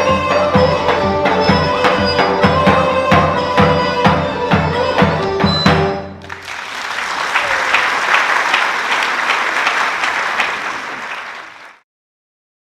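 Traditional Thracian folk band playing a melody over a steady daouli drum beat, then stopping about halfway through. Audience applause follows and fades out near the end.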